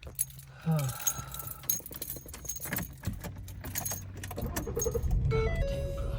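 Keys jangling in a series of small metallic clicks over a low steady hum, then a short run of stepped electronic tones near the end.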